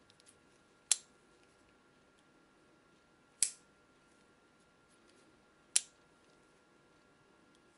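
3D-printed morphing knife snapping open and shut, its plastic linkage clacking into place with a sharp snap about every two and a half seconds.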